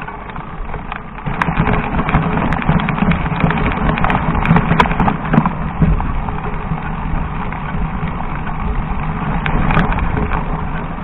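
Mountain bike riding over a loose, rocky dirt trail: tyres crunching over stones and the bike rattling, with scattered sharp knocks in a steady rough rushing noise.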